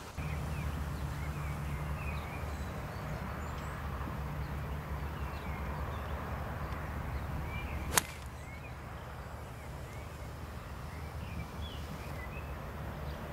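Golf iron striking a ball cleanly off the turf: one sharp crack about eight seconds in, over small birds chirping and a steady low rumble.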